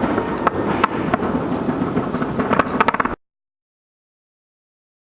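Fireworks going off: many sharp bangs and crackles in quick succession over a steady rumble, cutting off abruptly to dead silence about three seconds in.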